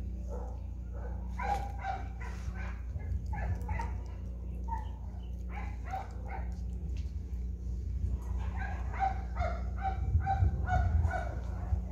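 Short, pitched animal calls in quick clusters, busiest in the first few seconds and again over the last three, over a steady low hum.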